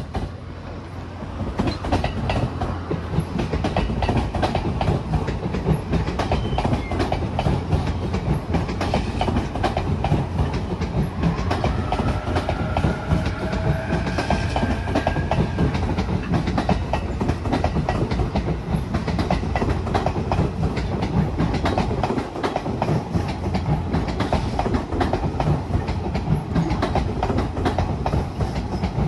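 JR East E259 series Narita Express electric train passing close by, its wheels clacking steadily over rail joints. The sound builds over the first couple of seconds as the train draws alongside, and a brief rising whine comes about halfway through.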